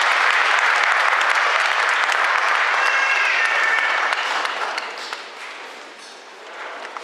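Audience applauding, steady at first and then dying away over the last two or three seconds.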